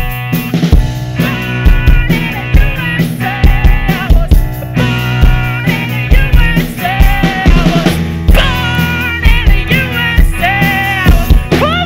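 Live rock band playing a song: drum kit, electric guitar and bass, with a lead singer whose melody ends on a held, rising note near the end.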